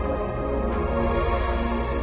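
Background music: held, sustained notes over a deep, steady bass.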